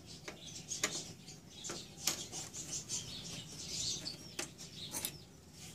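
Screwdriver working out the last screw from the sheet-metal chassis of an HP LaserJet 1300 laser printer's formatter board: faint, scattered small metallic clicks and scrapes.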